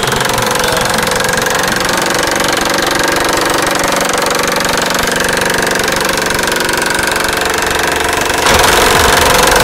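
Electric impact wrench hammering steadily with very rapid knocks as its socket drives a nut down a bolt; it gets louder near the end.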